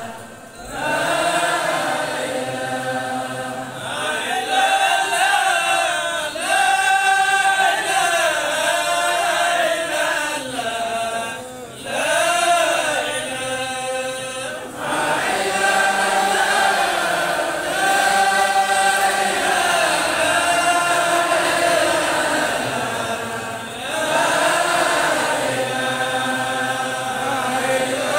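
A crowd of walking marchers chanting a religious chant in unison, in long repeated phrases with brief breaks between them.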